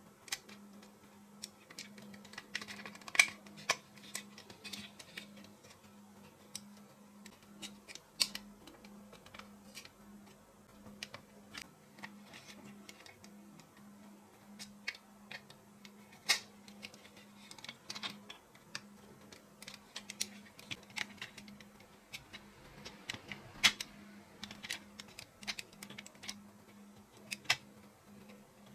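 Irregular light clicks and taps of small hard parts being handled and worked on, a few sharper knocks among them, over a faint steady hum.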